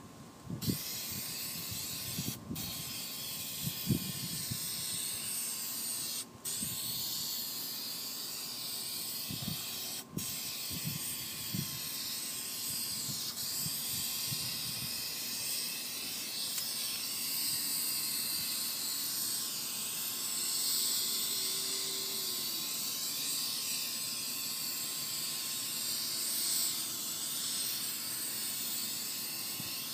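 Aerosol can of black fabric spray paint hissing as it is sprayed onto a canvas convertible top, in long near-continuous bursts with brief pauses about two, six and ten seconds in.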